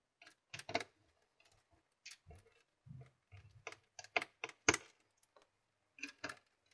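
Light, irregular clicks and taps of a Nintendo Wii's thin metal shield and parts being handled and seated during reassembly, a few of them sharper about four to five seconds in.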